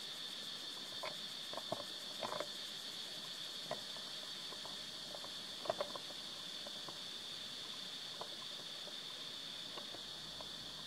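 Steady high-pitched drone of insects, with a scattered handful of short soft clicks and smacks, the loudest pair about six seconds in.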